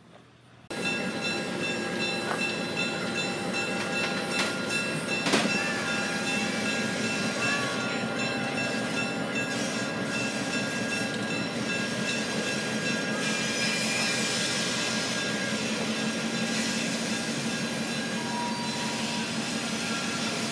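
Rail vehicle running on steel track, a steady running noise with high ringing wheel-squeal tones over it, cutting in abruptly about a second in. There are a couple of sharp knocks around four to five seconds in.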